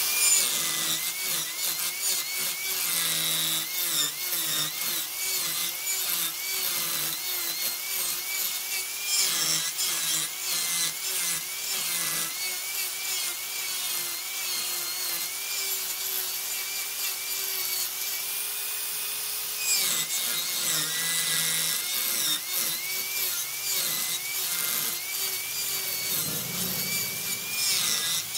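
Wood lathe running with a turning tool cutting the spinning wood: a steady motor hum that repeatedly dips in pitch as the cut bites, over a constant rasping hiss from the cutting.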